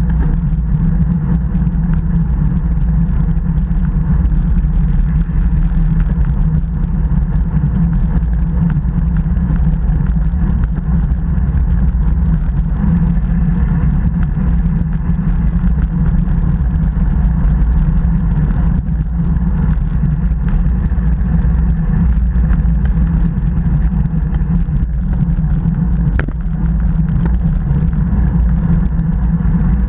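Steady, loud wind rush and rumble over an action camera's microphone on a road bike moving at about 35 to 40 km/h.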